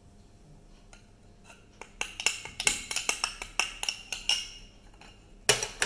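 A glass mixing bowl being tapped: a quick run of more than a dozen sharp clinks with a short glassy ring, starting about two seconds in, then one louder clink near the end.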